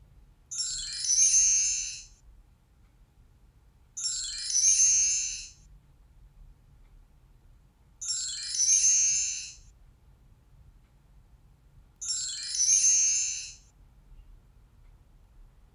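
A high chime sound effect played four times, about four seconds apart, each lasting about a second and a half and swelling before it fades. Each chime marks a new vote count appearing on an animated bar chart.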